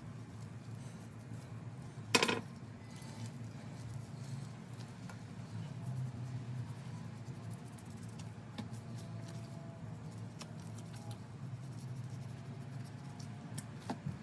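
A knife cutting and scraping fat off a raw beef brisket on a plastic cutting board: faint slicing and small ticks over a steady low hum, with one short, louder rasping scrape about two seconds in.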